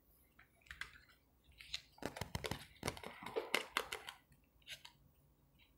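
Tarot cards being handled and laid down on a table: a scatter of light clicks, slaps and rustles, busiest from about two to four seconds in.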